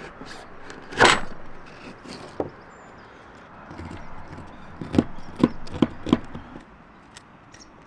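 Multitool knife blade carving a block of cork, with scraping and cutting sounds. There is a sharp knock about a second in, and a run of short clicks and taps a little past the middle.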